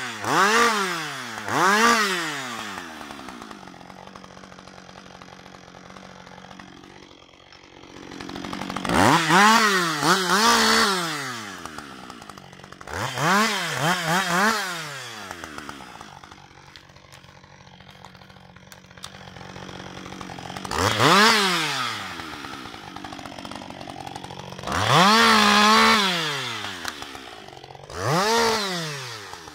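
Husqvarna 560 XP two-stroke chainsaw limbing a fallen spruce. It revs up in about nine short bursts to cut branches and drops back to a steady idle between cuts.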